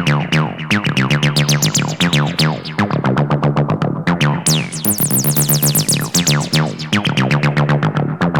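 Distorted TB-303-style acid synth bassline playing through the TB-303 Distortion Pro V2 plugin, a rapid stream of notes about eight a second, each with a squelchy falling filter sweep. It is shaped by the plugin's resonant pre-distortion high-pass filter, and turns much brighter and harsher about four and a half seconds in.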